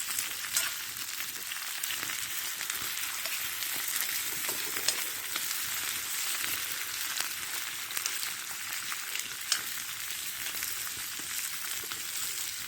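Potatoes and vegetables frying in garlic butter in a cast iron skillet, a steady sizzle with scattered sharp pops, two of them louder.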